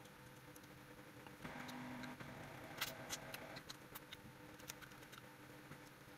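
Faint wet chewing and small mouth clicks of someone eating juicy pineapple chunks off a fork, a little louder for a couple of seconds in the middle, with one sharper click about three seconds in.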